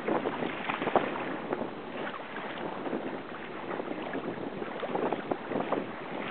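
Water rushing and splashing against the hull of a sea kayak under sail, in irregular slaps, with wind noise on the microphone.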